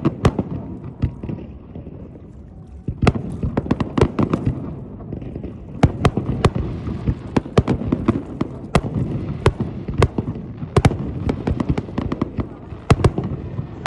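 Fireworks going off in a display: a dense, irregular run of sharp bangs and crackling pops, thinning briefly after the start and then picking up again.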